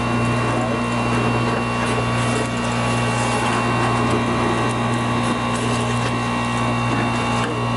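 Industrial vacuum running steadily with a constant hum and a rush of air, its 2-1/2-inch hose sucking dry Portland cement powder, with a few faint ticks of grit.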